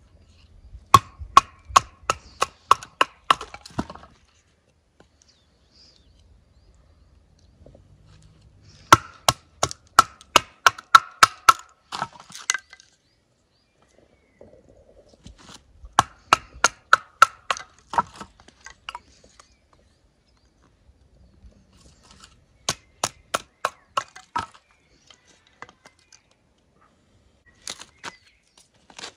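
Rapid sharp knocks with a ringing tone, about four a second, coming in four runs of roughly three seconds each with quiet gaps between.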